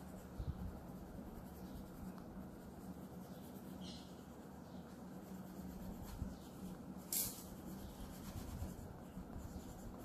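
Fingertip rubbing oil pastel into drawing paper, a faint steady scratchy rubbing as two shades of brown are blended together. A single sharp click about seven seconds in.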